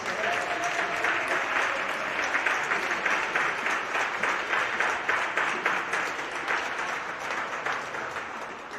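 Crowd applauding in many rapid overlapping claps, dying away near the end.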